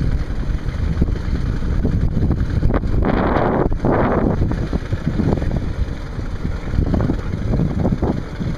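Wind buffeting the microphone as a steady low rumble, with two louder rushes of wind noise about three and four seconds in.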